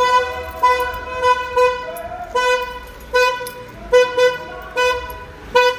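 Car horn sounding a run of short, single-pitched blasts, mostly in quick pairs, repeated all through: rhythmic celebratory honking for a football win.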